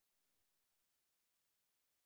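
Silence: a pause between sentences in a recorded talk, with no audible sound.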